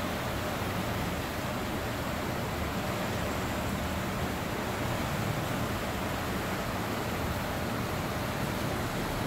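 Steady rush of turbulent river water, an even hiss with no breaks.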